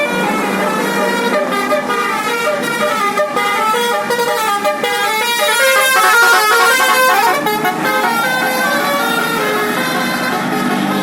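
A bus's basuri telolet horn, a multi-tone musical horn, playing a fast tune of short notes that step up and down in pitch over a steady low hum.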